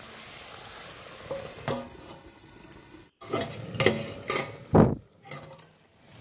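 Chicken and potato curry simmering and sizzling in a kadai, then a metal ladle clinking, knocking and scraping against the pan as the curry is stirred, with several loud knocks in the second half.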